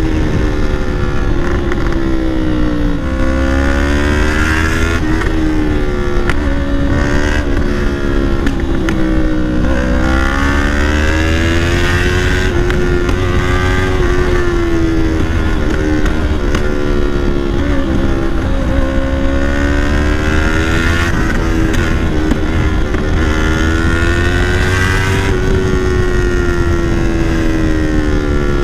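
Yamaha R3's parallel-twin engine running through a Leo Vince full-system aftermarket exhaust while riding, its pitch rising and falling in several waves as the throttle is opened and eased off.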